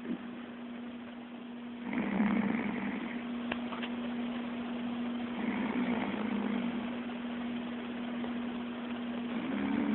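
A chicken snoring: three louder snore-like swells about three to four seconds apart, over a steady low hum.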